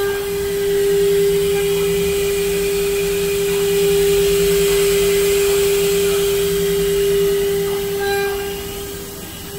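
CNC router spindle running with a steady high whine, over a rushing noise that is loudest through the middle and eases off near the end.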